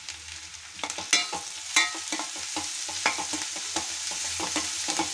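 Sliced onions, green chillies and ginger sizzling in oil in a stainless steel kadai as turmeric and rock salt are stirred in. A spoon scrapes and clinks against the steel pan repeatedly from about a second in, over a steady sizzle.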